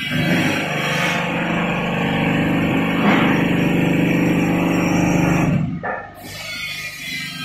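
Hydraulic deep-drawing press for stainless-steel sinks, its pump unit running with a steady hum. The hum cuts off suddenly about five and a half seconds in.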